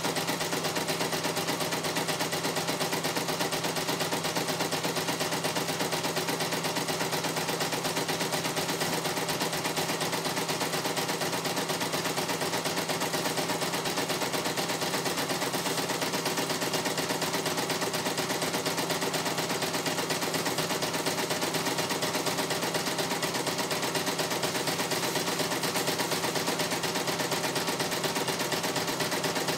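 CNY E900 computerized embroidery machine stitching a design, its needle running in a fast, steady clatter of strokes as the hoop is moved under it.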